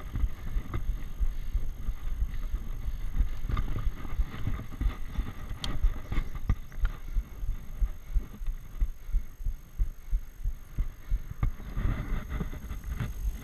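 Bicycle ridden up a road climb, heard through a GoPro: a low buffeting rumble of road vibration and air on the microphone, with a few sharp clicks. From the middle on the rumble pulses about twice a second.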